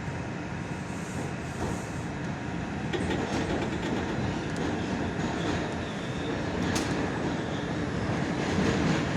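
Steady rumble of an R142 subway car's wheels and motors heard from inside the car as it runs along the track. It grows louder about three seconds in, with scattered clicks of the wheels over the rail joints.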